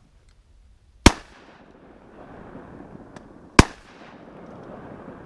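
Two shotgun shots about two and a half seconds apart, fired at mallards over decoys, with a rushing noise continuing between and after them.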